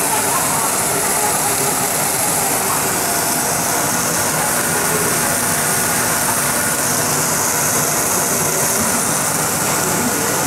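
Snack puffing extruder running: a steady, loud, hiss-heavy machine noise with a faint hum held through it.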